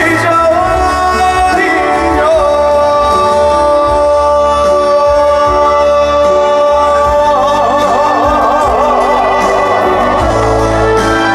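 Live trot music: a band plays while a male singer holds one long note, which wavers with vibrato in its second half.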